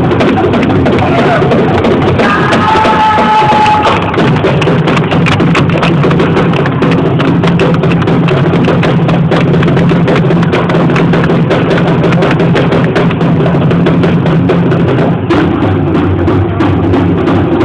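Live band music led by heavy drumming, loud and dense, with a brief held high note about three seconds in.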